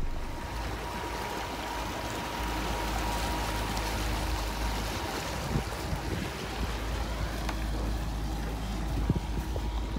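Small motorboat running on open water: water rushing and splashing along the hull over a steady low rumble, with a brief knock near the end.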